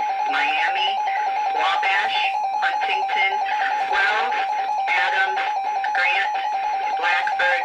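NOAA Weather Radio warning alarm: one continuous steady tone, with a garbled voice broadcast running beneath it.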